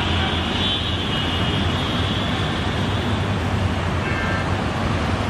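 Diesel locomotive hauling a long passenger express train, running with a steady low engine drone over the rumble of the train.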